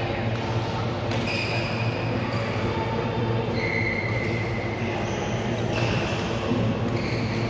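Badminton rally in a large hall: sharp hits of rackets on the shuttlecock and short high squeaks of court shoes on the floor, over a steady low hum and the hall's echo.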